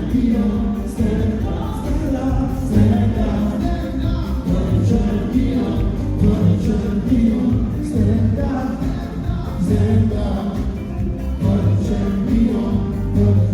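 Music with singing voices, choir-like and in a gospel style, over a steady beat.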